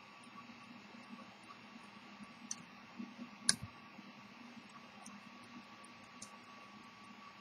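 Faint, quick, even ticking of a Victor Kullberg marine deck watch running, over a steady hiss. A few sharp metallic clicks come as the movement is handled against its brass case, the loudest about three and a half seconds in.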